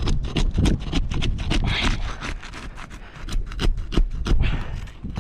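Brittle asphalt roof shingle being pried up off a sealant strip that is glued down hard: a run of irregular crackles, snaps and scrapes as the tar strip breaks and the shingle cracks.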